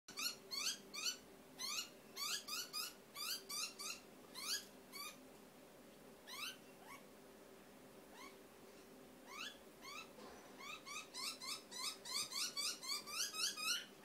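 A young butcherbird begging to be fed: bouts of short, squeaky notes that each rise in pitch, repeated several times a second. There is a lull partway through, and the calls come faster and louder near the end.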